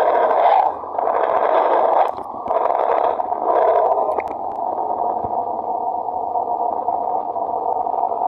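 Space-sound sonification presented as the sound of the planet Mercury: a low, echoey staticky drone, swelling and dipping a few times in the first half, then holding steady.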